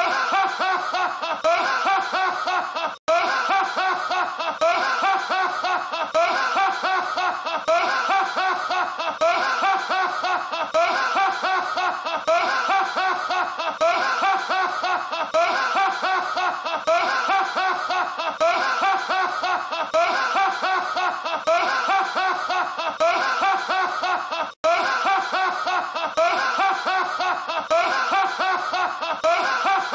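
A man laughing hard and without pause, a rapid chain of short laughs repeated over and over as a looped film clip. There are brief silent breaks at the loop joins, about three seconds in and again about twenty-five seconds in.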